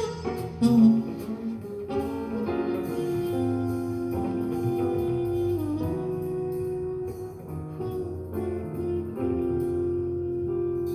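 Instrumental music played back through a single-ended valve amplifier with Miniwatt EL3N pentode output valves and its loudspeaker, a run of held notes with fresh notes starting every second or so.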